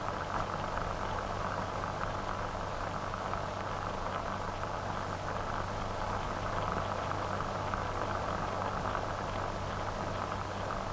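Steady hiss and low hum of an old optical film soundtrack, with no other sound standing out.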